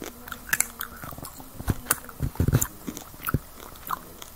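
Close-up biting and chewing of a breaded chicken wing: irregular crunches and mouth clicks, loudest in a cluster a little past the middle.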